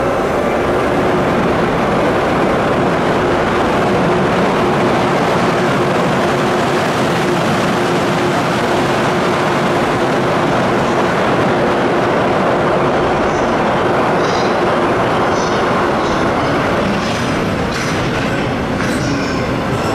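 EH500 electric locomotive hauling a container freight train of Koki flat wagons past on the adjacent track, with a steady loud rumble of wheels on rail. A steady hum sounds while the locomotive and first wagons pass. Short high-pitched wheel squeaks come from the wagons in the last few seconds.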